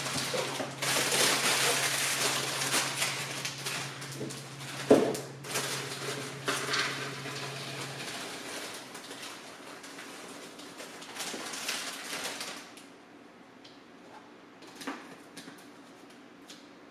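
Kitchen work at a counter: rustling, clattering handling noise with a few sharp knocks, over a low steady hum that stops about eight seconds in. After about twelve seconds it turns quieter, with scattered small clicks and taps.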